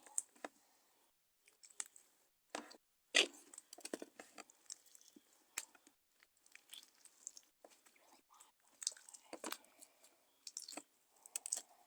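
Slime being squished and worked by hand, making irregular sticky clicks and crackles.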